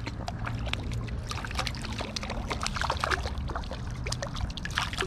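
Water splashing and trickling close by in many small, quick splashes and drips, over the steady low rush of the river.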